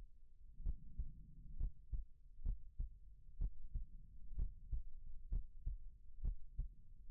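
Slow heartbeat: paired lub-dub thumps repeating a little under once a second, about 65 beats a minute, over a low steady rumble.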